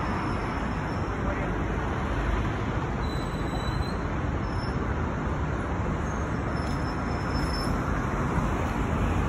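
Steady rushing of the Sochi River running high and fast, swollen after a night of heavy rain, mixed with the hum of road traffic.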